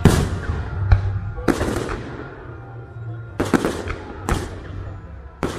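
Fireworks shells bursting overhead: about six sharp booms, each trailing off in an echoing crackle, with two close together about three and a half seconds in.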